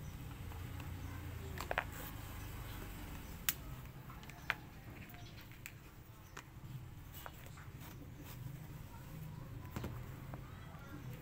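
Shoelace being threaded through the eyelets of a white leather sneaker: soft rubbing and rustling with a few sharp little clicks, the clearest about two, three and a half and four and a half seconds in. A low steady hum runs underneath.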